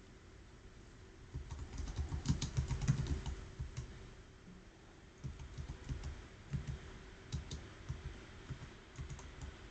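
Typing on a computer keyboard: quick runs of keystrokes, the busiest stretch a couple of seconds in, then a short lull before the typing picks up again.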